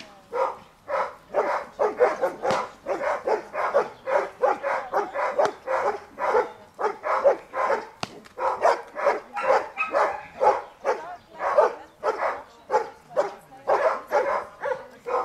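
Giant Schnauzer barking repeatedly, about two barks a second, in agitation at the helper during protection training.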